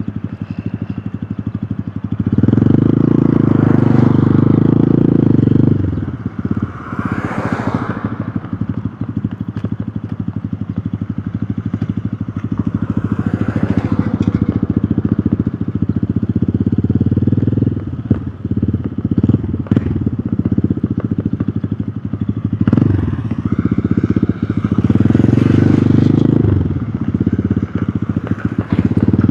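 Hero Hunk's single-cylinder engine running while riding, its exhaust note pulsing quickly. The engine gets clearly louder twice as the throttle is opened, once a couple of seconds in and again about 24 seconds in, then settles back.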